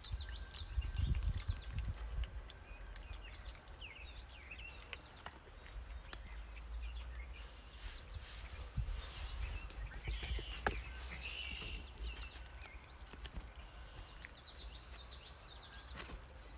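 Outdoor ambience with small birds chirping off and on, over a low rumble of wind and handling noise, with a few sharp clicks or knocks.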